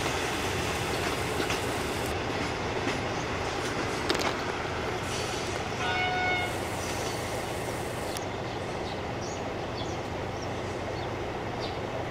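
Passenger train rolling away over the rails, its wheels clicking over the rail joints, with a short horn blast about six seconds in.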